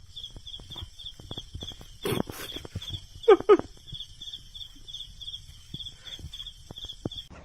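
Insect chirping in a steady high pulse, about four chirps a second, with two short loud animal calls about three and a half seconds in; the sound cuts off suddenly just before the end.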